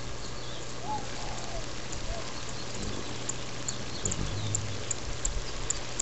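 Steady crackling hiss with a low hum underneath and many faint ticks, the noise of a low-grade camera's open microphone; a faint chirp about a second in.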